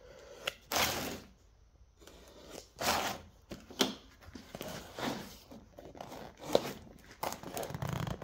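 Cardboard box being opened by hand: flaps pried up and pulled open, with several separate tearing, scraping and rustling sounds of the cardboard.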